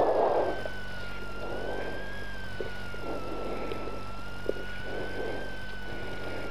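Rally car's engine running steadily in the cabin while the car waits at the stage start, with a whine that drifts slowly up and down in pitch. There is one small knock about four and a half seconds in.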